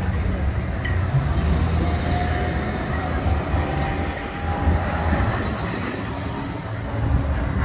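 A Bombardier Flexity 2 tram running past at close range, a dense low rumble. About two seconds in, a faint whine comes in and rises slightly in pitch over a few seconds.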